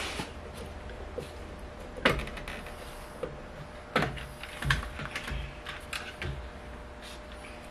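Hands working at a Porsche 924's steering wheel to take it off: a few sharp knocks and clicks, the loudest about two seconds in, then a cluster of smaller knocks around four to six seconds in.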